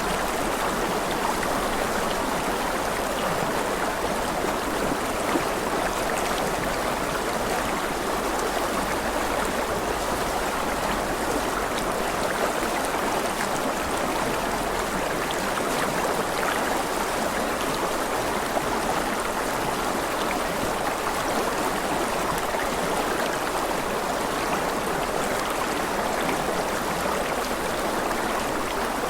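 River water flowing steadily in a continuous, even rush.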